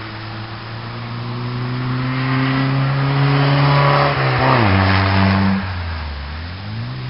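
A Skoda saloon's rear-mounted four-cylinder engine pulls hard past at close range. Its note climbs and grows loud, then falls sharply about four and a half seconds in as the car goes by and lifts off. It picks up again near the end as the car accelerates out of the corner.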